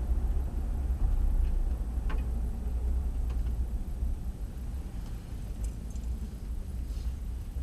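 Steady low rumble of a vehicle's engine and tyres heard from inside the cabin while driving, with a few faint scattered clicks.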